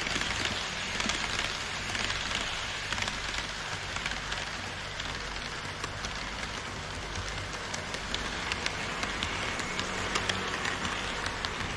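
HO scale model trains rolling along KATO Unitrack: the running rattle of small metal wheels on the rails, with a dense stream of sharp clicks from the wheels crossing rail joints and a low hum underneath. The clicking grows busier in the second half as the DD51-hauled Twilight Express coaches pass close by.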